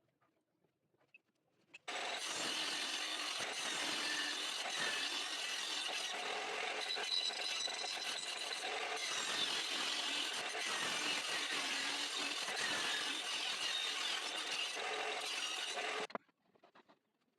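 A woodworking tool working on wood, giving a steady, harsh noise that starts abruptly about two seconds in and stops sharply near the end.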